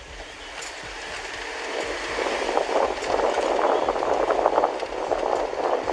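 Road and tyre noise inside a moving police SUV, building up over the first two seconds, with light rattling from the cabin.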